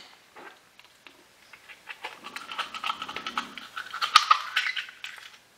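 An oyster knife scraping and prying at an oyster's shell in quick rasping strokes, starting about two seconds in, with a sharp click of knife on shell just after four seconds.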